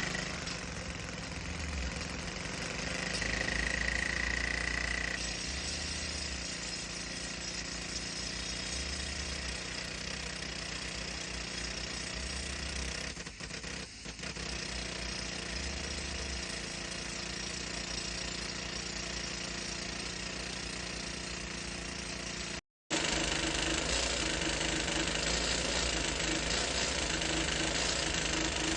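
Jackhammer on an excavator-mounted drilling rig hammering steadily as it drives the drill pipe, with an engine running underneath. The sound breaks off briefly about three-quarters of the way through, then carries on slightly louder.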